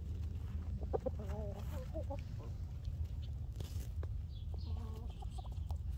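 Chickens clucking: a run of short wavering calls about a second in and another near the end, with scattered light taps, over a steady low rumble.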